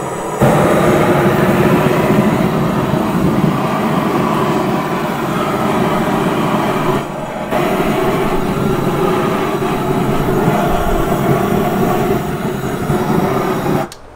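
Su-VGun propane torch firing into lump charcoal to light it: a loud steady roar of the flame jet. It cuts out for about half a second midway, starts again, and shuts off just before the end.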